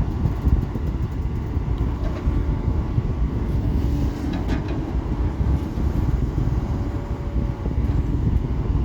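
Excavator's diesel engine running steadily with a low rumble, with a few faint knocks near the middle.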